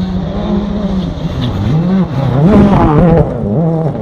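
Rally car engine revving hard as the car approaches, its pitch climbing and falling through gear changes. It is loudest after about two and a half seconds, then drops suddenly.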